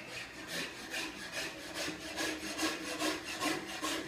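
A hand tool scraping on metal in quick, even strokes, about three a second.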